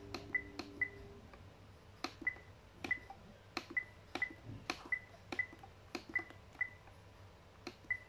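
The control-panel buttons of an iRobot Roomba 805 robot vacuum being pressed one after another while its cleaning schedule is set. Each press is a small click followed by a short, high beep from the robot, about a dozen presses in all, many in quick pairs about half a second apart.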